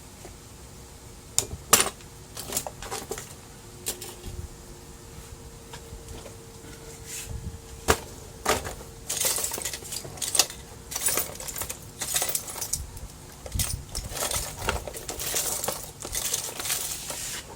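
Sharp clicks and small metallic clinks and rattles of screws and printer parts being handled during reassembly of a laser printer, scattered at first and then a busier stretch of rattling and scraping in the second half.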